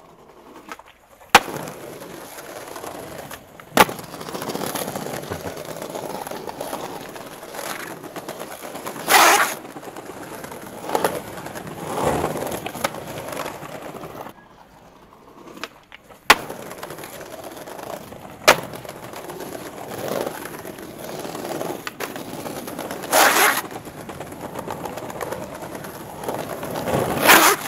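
Skateboard wheels rolling over stone paving, with sharp clacks of the board and a loud board impact, in two similar runs with a short quiet gap between them. These are hardflip attempts that were not kept.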